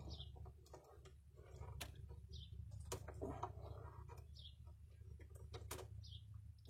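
Faint, scattered light clicks and taps of small hardware and hand tools being handled under a truck, over a steady low hum. Short high bird chirps sound every second or so.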